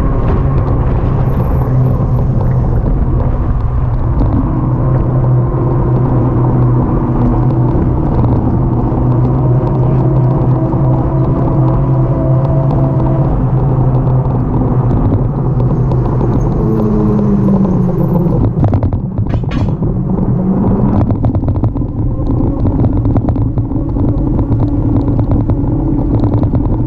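Steady low rumble of wind and road noise with motor traffic passing. One passing vehicle's hum falls in pitch a little past the middle.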